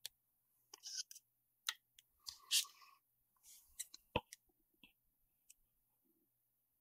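Faint handling sounds of scissors and a sheet of thermal pad over a cutting mat: scattered small clicks and short rustles, the loudest about two and a half seconds in.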